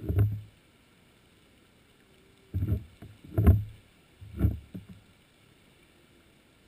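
Four dull, low thumps heard on an underwater camera: one right at the start, then three about a second apart between two and a half and five seconds in.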